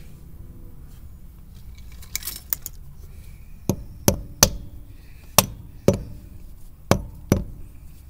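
A rubber mallet taps the steel grease cap onto the front wheel hub of a 1968 Ford F100, seating the dust cap over the freshly adjusted tapered wheel bearing. A few light metallic clinks about two seconds in are followed by seven sharp knocks, mostly in pairs.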